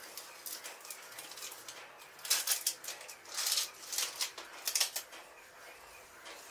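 Blue painter's tape being peeled off a freshly painted wall: several short ripping, crackling pulls.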